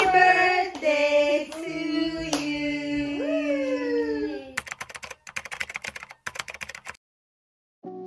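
Voices singing long held notes, with a slide up and down in pitch about three seconds in. After that comes a run of irregular sharp clicks like typewriter keys, then a moment of silence, and soft music begins near the end.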